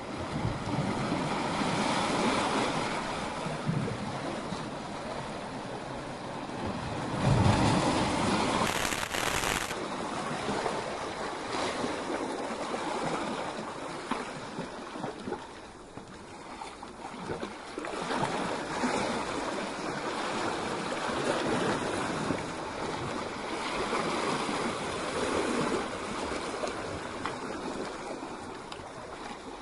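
Sea waves breaking and washing over rocks and boulders: a rush of surf that swells and ebbs every few seconds, with the loudest surge about seven seconds in.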